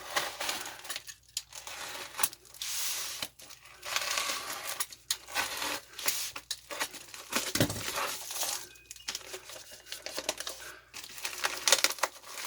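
Package wrapping being torn open and crumpled by hand: irregular tearing and crinkling with scattered sharp clicks.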